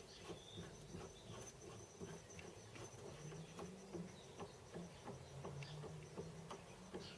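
Faint, irregular light metal clicks and ticks as the cross feed screw of a home-built Gingery milling machine is turned by hand.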